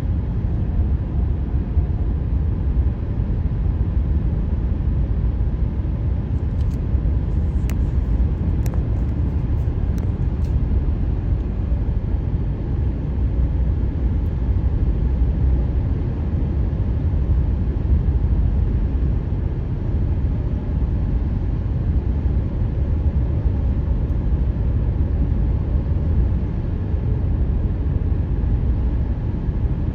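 Car driving at highway speed on freshly laid asphalt: steady tyre and road noise, with a few faint ticks a third of the way in.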